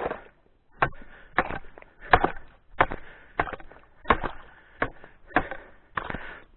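A long wooden-handled ice chisel striking and chopping at ice in a hole at the water's edge: about ten sharp blows at a steady pace, each with a short crunch.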